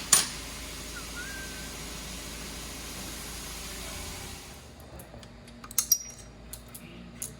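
Scattered sharp clicks and light knocks, with a louder pair about six seconds in, over a steady hiss that drops away about four seconds in.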